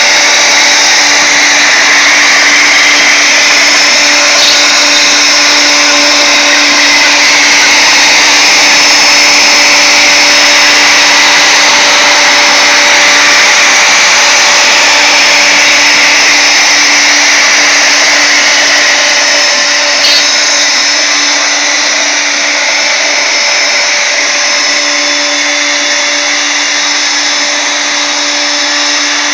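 Router motor on a CNC router running at speed while a ball-nose bit carves a finishing pass in wood: a steady whine with the hiss of cutting. A small click about two-thirds of the way through, and it runs a little quieter after.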